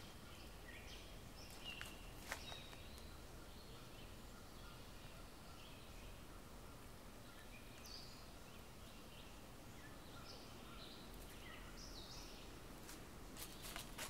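Faint forest ambience: small birds giving short, high chirps and whistles here and there over a quiet hiss, with a light click or two about two seconds in.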